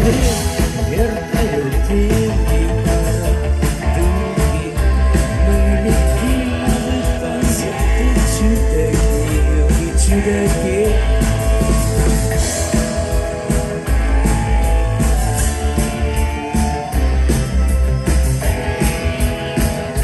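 Live rock band playing a song at full volume, with amplified guitar over heavy bass and drums.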